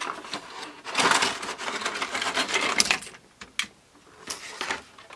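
A cardboard model-train box and its packaging rustle and crackle for about two seconds as an HO scale plastic boxcar is slid out. Then come a few separate sharp clicks as the small plastic parts are set down on a cutting mat.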